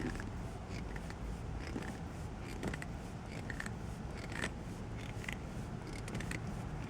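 Momo shift knob being worked down onto the gear lever over its rubber sleeve: scattered small clicks and rubbing scrapes over a steady low hum.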